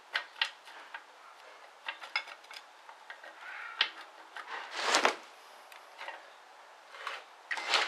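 Metal parts of a TH350 automatic transmission clinking and knocking as they are handled during teardown, with a louder clatter about five seconds in.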